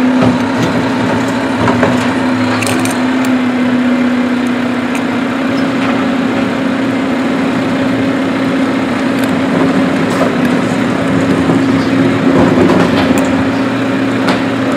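Helicopter running steadily with a constant droning hum. Faint plastic clicks from the toy garbage truck's Curotto-Can grabber arm taking hold of a toy wheelie cart.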